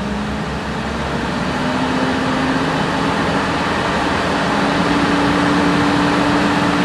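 A 6.7L Cummins turbo-diesel, heard from inside the cab, is throttled up from about 1,000 to about 2,000 rpm and held there. Its drone climbs in pitch over the first few seconds and then runs steady. The belt driving the added AMPS alternator under electrical load runs with no slapping or thwapping.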